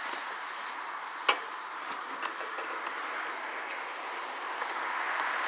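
A lathe on a wooden pallet, hanging from an engine crane's chain, being rocked and shifted by hand: one sharp knock about a second in and a few small clicks and creaks, over a steady rushing background.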